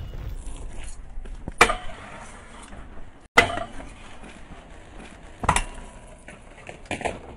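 Stunt scooter's wheels rolling on concrete, broken by four sharp clacks as the scooter's deck and wheels slam down on the ground or the bar during tricks, spaced about one and a half to two seconds apart.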